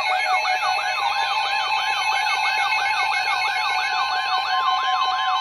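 Several NOAA weather radios sounding their alert alarms together for a severe thunderstorm warning: a siren-like sweeping tone repeating about four times a second over steady beeping tones. About four and a half seconds in, a steady single tone joins in, typical of the broadcast's warning alarm tone.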